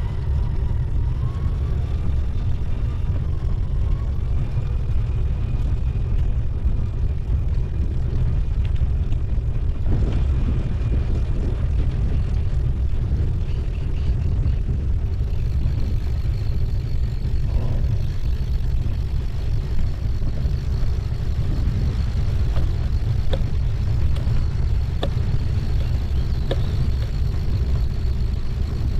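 Steady low rumble of wind buffeting the microphone while riding a bicycle, with a few faint clicks near the end.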